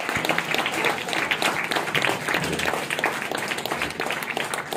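Audience applause: many people clapping at once in a dense, even patter.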